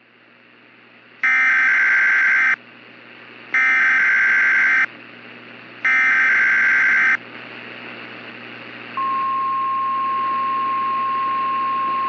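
NOAA Weather Radio emergency alert: three short bursts of SAME header data tones over radio static, then about nine seconds in the steady single-pitch 1050 Hz warning alarm tone starts and holds, signalling a newly issued warning.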